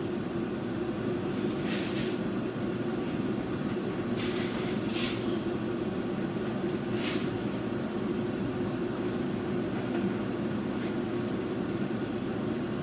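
Chicken curry simmering in a wok on the stove: a steady low rumble with a few soft, brief bursts of hiss.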